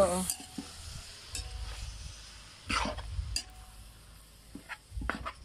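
Metal ladle stirring and scraping chopped innards in a wide aluminium pan over a wood fire, with a faint sizzle as they sauté. The ladle scrapes the pan most sharply about three seconds in and again near the end.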